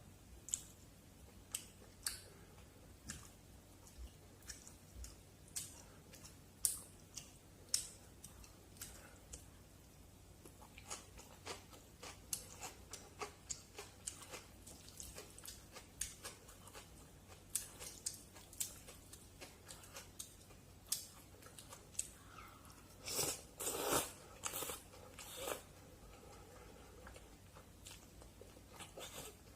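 Close-miked mouth sounds of a person eating noodles in black bean sauce: scattered wet chewing and lip-smacking clicks, with a louder run of eating noises about three-quarters of the way through.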